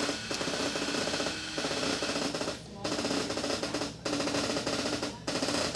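Background music with rapid drumming, in phrases a second or so long separated by brief breaks.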